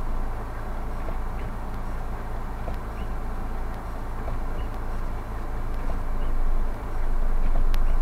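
Steady low rumble inside the cabin of a stopped car in a blizzard, picked up by a dashcam, with a few faint ticks; it swells louder for a moment near the end.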